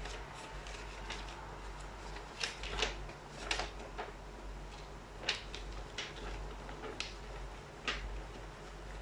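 Paper instruction leaflet being unfolded and handled, giving a string of short, sharp crinkles and rustles, the loudest a little over two and a half seconds in, with a faint low hum underneath.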